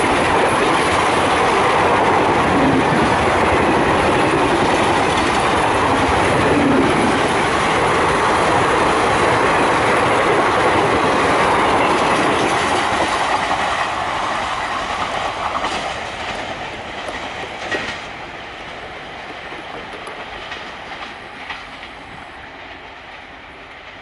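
An express train's passenger coaches pass at speed close by, the wheels clattering over the rail joints in a loud, steady rush. About halfway through the noise dies away as the train recedes, leaving a fading rumble with a few sharp clicks.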